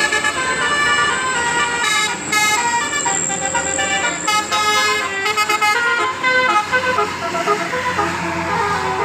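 Bus telolet horn playing a tune: a quick run of loud horn notes stepping up and down in pitch.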